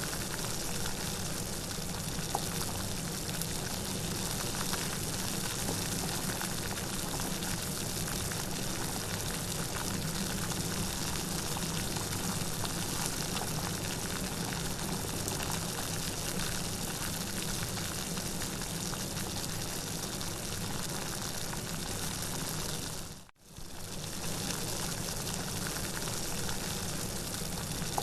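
Steady rain, a dense, even hiss of falling drops. About 23 seconds in it fades out almost to silence for a moment, then comes straight back.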